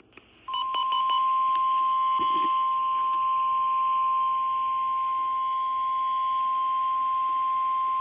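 NOAA Weather Radio 1050 Hz warning alarm tone, a single steady high tone starting about half a second in after a few quick beeps, sent as the weekly test of the warning alarm.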